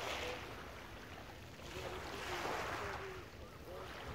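Small waves washing onto a shingle beach, swelling and fading twice, over a low rumble of wind on the microphone.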